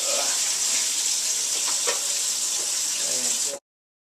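Kitchen sink tap running hard, a steady hiss of water into the sink while spoiled, thickened dairy is rinsed away. It cuts off suddenly near the end.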